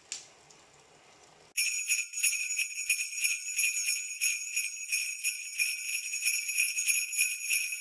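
Sleigh bells jingling in a steady shaking rhythm, about three to four shakes a second, starting about a second and a half in after a faint hush.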